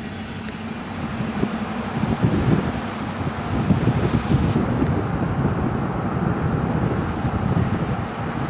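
Moving car's steady road noise with low, irregular wind buffeting on the microphone.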